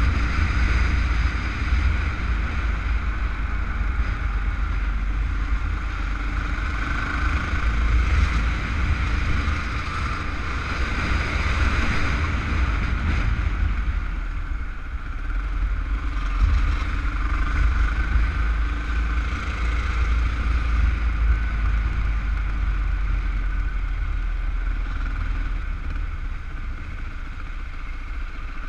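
Wind buffeting a helmet-mounted camera's microphone while riding a motorcycle through city traffic, with the engine running underneath. The noise eases a little near the end as the bike slows for a light.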